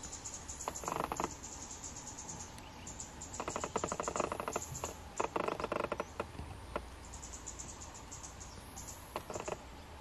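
Stripe-throated bulbuls calling in four bursts of quick rattled notes, the two longest in the middle, over a pulsing high insect trill.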